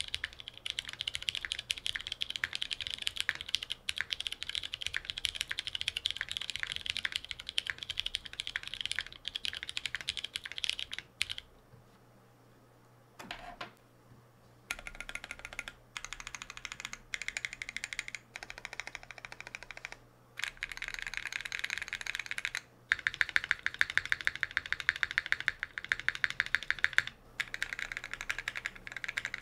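Typing on a Moment 60% custom mechanical keyboard with lubed, filmed Butter Brown switches, a half-aluminum plate and GMK Striker keycaps: a fast, dense run of keystroke clacks. The typing stops for about three seconds near the middle, then resumes in bursts with short breaks, louder toward the end.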